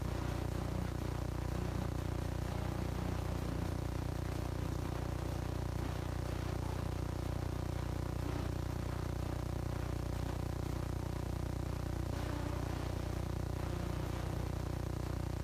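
Steady low electrical hum, a mains buzz with a row of evenly spaced overtones that does not change.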